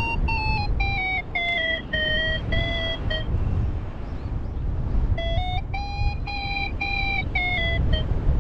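Paragliding variometer beeping, a fast string of short electronic tones whose pitch climbs and then sinks as the rate of climb changes. The beeping stops for about two seconds mid-way, then resumes, over a low rumble of wind on the microphone.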